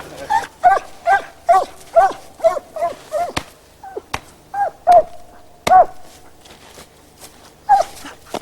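Hunting dog barking: a quick run of high, yelping barks at about two or three a second, then a few more spaced barks.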